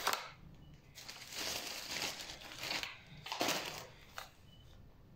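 Plastic food packaging crinkling and rustling as packets are handled and held up, in a few uneven bursts.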